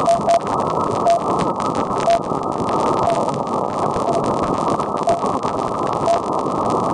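RWM Russian time-signal station on 9996 kHz received on shortwave: short beeps tick once a second under heavy static hiss, and the first tick is doubled.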